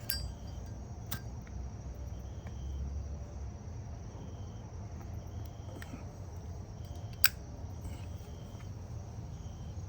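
Short high insect chirps repeating about once a second over a steady low rumble. A few sharp clicks cut through, the loudest about seven seconds in.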